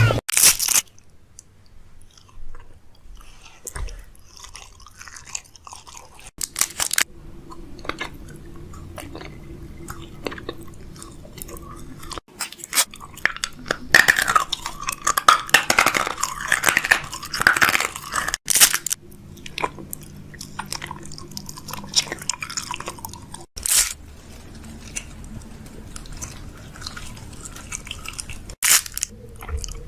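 Close-up chewing and crunching, as of someone eating crunchy food: a run of irregular crisp crunches with a few sharper, louder ones every several seconds.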